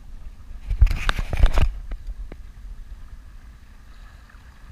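Sea water slapping and splashing against the hull of a small motorboat for about a second, over steady wind rumble on the microphone, followed by a couple of light clicks.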